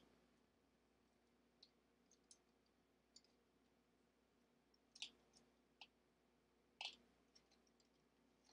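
Near silence broken by about nine faint, sharp clicks at irregular intervals, the loudest right at the start and a slightly longer one about seven seconds in: small handling noises of fingers holding a plastic miniature.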